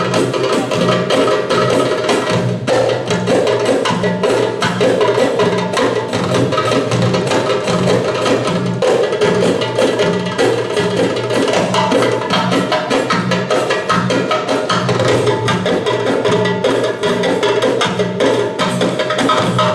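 Live percussion ensemble of darbukas (goblet drums) and tambourine playing a fast, dense rhythm over a steady, repeating low drum beat.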